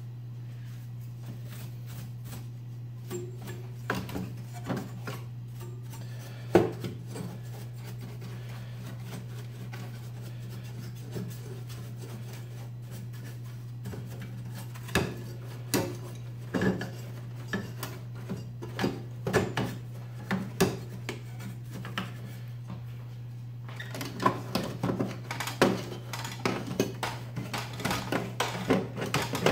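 Paintbrush bristles and handle brushing and scraping dust off the circuit boards and metal chassis inside an opened Sony PVM CRT monitor: irregular soft rubbing with scattered small taps and clicks, coming thicker near the end, over a steady low hum.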